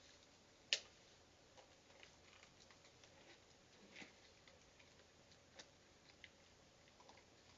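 Faint, scattered clicks and taps of raccoons moving and picking at food, with one sharper click less than a second in and a few softer ones later. No calls are heard.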